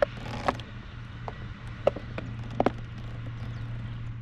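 A few sharp knocks and clicks, as of gear handled against a plastic fishing kayak, over a steady low hum; the last is a quick double knock.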